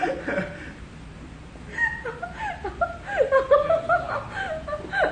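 A woman and a young man laughing, quietly at first, then louder from about two seconds in.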